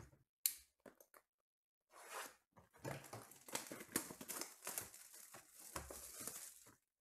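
Cellophane shrink-wrap being torn and peeled off a trading-card hobby box: a dense crinkling and crackling of thin plastic from about two seconds in. A brief sharp knock sounds about half a second in.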